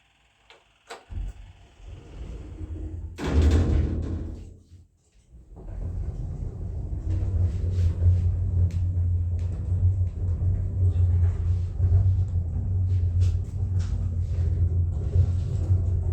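Lift ride: a burst of noise about three seconds in, with the lift doors sliding, then the car travelling with a steady low rumble and faint ticks.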